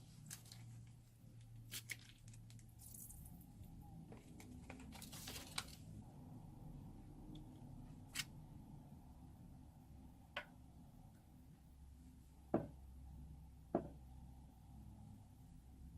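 Slime being worked from a plastic piping bag: faint crinkling of the bag and sticky crackles, then several separate sharp clicks and pops.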